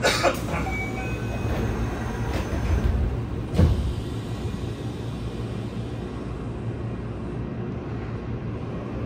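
Inside a Yokohama Blue Line 3000S subway car standing at the platform with its doors shut. A steady low hum of the car runs throughout. A few brief high tones sound about a second in, and a single thud comes at about three and a half seconds.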